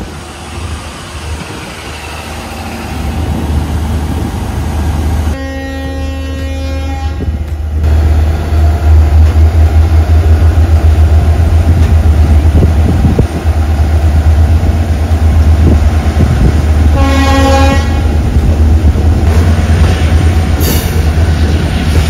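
Diesel train horn sounding one long blast about five seconds in and a shorter one about seventeen seconds in, over the loud, growing rumble and clatter of a train moving on the track.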